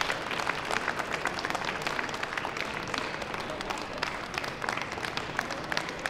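Crowd of onlookers applauding: many hands clapping at once, evenly.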